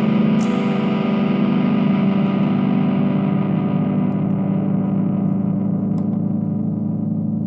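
Distorted electric guitar chord played through a BOSS eBand JS-10 practice amp. It is struck just after the start and left to sustain, its bright top end slowly fading as it rings out.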